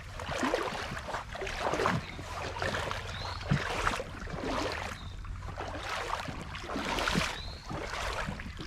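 Rubber boots wading through creek water, a splash and slosh with each step, about one to two steps a second.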